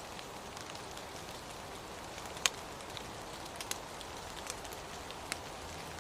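Rain falling: a steady hiss with scattered sharp drip-like ticks, one much louder tick about two and a half seconds in.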